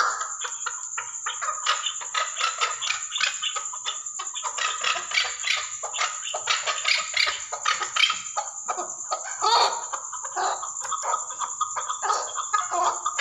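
Chukar partridge calling: a rapid, uneven run of short clucking notes.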